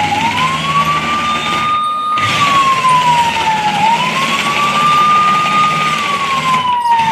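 Electronic siren of a toy police car wailing: a single tone slowly rising and falling, about one cycle every four seconds, over a steady hiss and low hum. It cuts out briefly twice.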